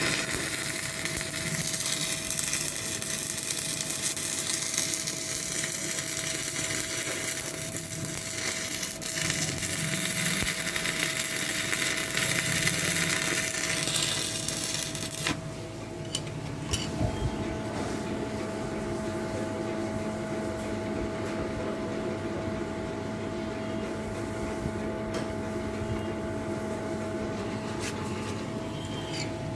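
Stick (electrode) welding arc from a 250-amp Arctech welding machine, crackling and hissing steadily for about fifteen seconds, then cutting off suddenly as the arc is broken. A steady hum with one constant tone runs underneath and goes on after the arc stops.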